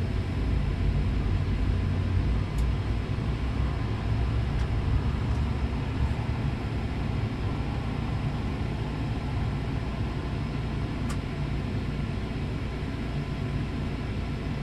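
Steady low mechanical drone inside an ice-fishing vehicle's cabin, with a few faint clicks.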